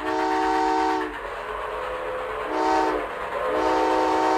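Multi-chime train whistle sounding a chord of several tones, blown three times: long, short, long. A steady rushing noise of a running train fills the gaps between blasts.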